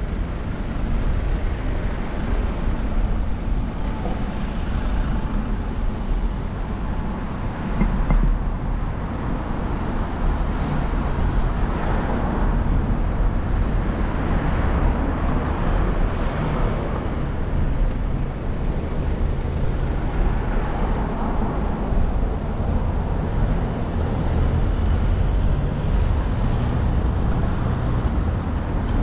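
City road traffic heard from a bicycle: cars running close alongside and passing, over a steady low rumble, with louder swells as vehicles go by around the middle.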